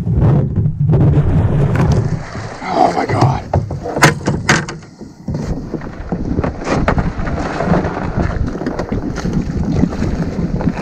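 Wind buffeting the microphone, with scattered knocks and bumps on a small plastic boat. Two sharp knocks about four seconds in are the loudest.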